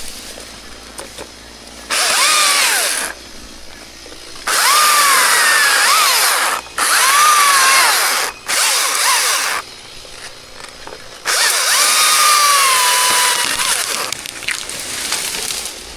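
Chainsaw revved hard in five short bursts for cuts, its engine pitch sagging and recovering under load, dropping back to a lower running sound between bursts.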